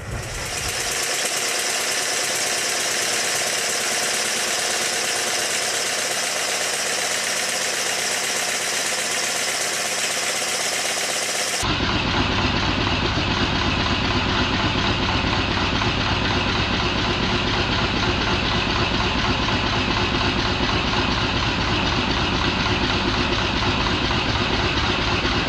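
Stuart triple expansion model steam engine running steadily on compressed air, a fast even clatter of its crank, valve gear and exhaust during running-in. About twelve seconds in the sound changes abruptly to a fuller, deeper version of the same running.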